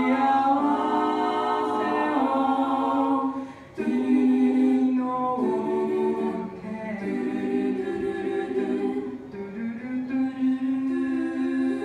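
A five-voice a cappella group singing a slow song in close harmony into handheld microphones, holding long chords. The sound breaks off briefly about four seconds in, then comes back, and is softer for a moment near the end.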